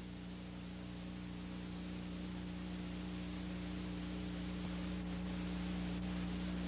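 Steady electrical hum with background hiss from an old film soundtrack, slowly growing a little louder.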